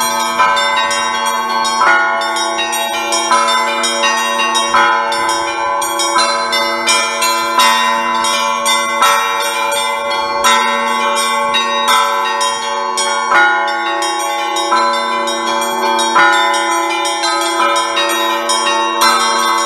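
Russian Orthodox church bells rung by one bell ringer in a festive peal: quick patterns on the small bells over a heavier bell struck about every second and a half, with a steady hum ringing on underneath.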